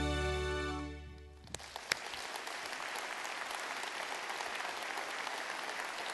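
Music with a held chord and deep bass fades out over the first second and a half. After a couple of sharp claps, an audience applauds steadily.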